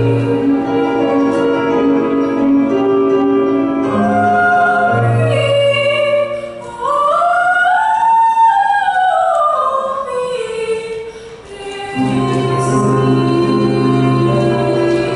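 A woman sings solo with instrumental accompaniment. Midway the low accompaniment drops away under a long sung phrase that climbs to a high note and comes back down, and the low accompaniment returns near the end.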